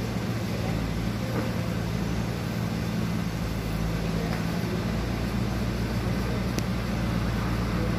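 A steady low hum with a constant low tone.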